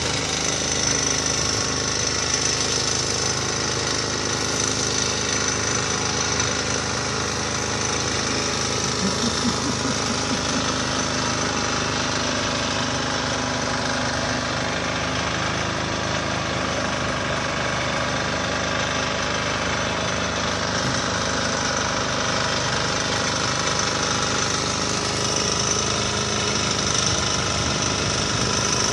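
Road-repair machinery working steadily: an engine running under a fast, even rattle of impacts that does not let up.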